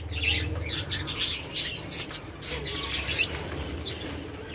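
Doves scuffling and flapping in a wire cage: a string of short, sharp wing-flap and scratching bursts on the newspaper floor, from two doves fighting.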